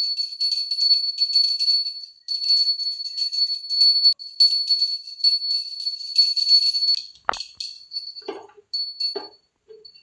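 Jingle-bell music, bells shaken in a quick, even rhythm, stopping suddenly about seven seconds in. A knock and a few short, soft sounds follow.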